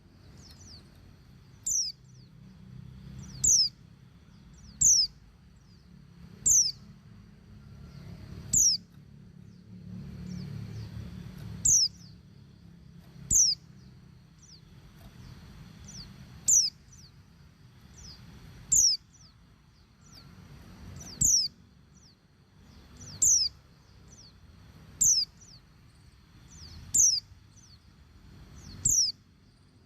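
Female white-eye (pleci) calling: short, very high notes that fall in pitch, repeated about every two seconds, about fourteen in all. It is the call of a female in breeding condition calling to males.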